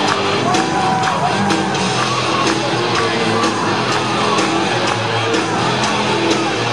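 High school marching band playing on the field: brass and woodwinds holding a tune over a steady drum beat of about two beats a second.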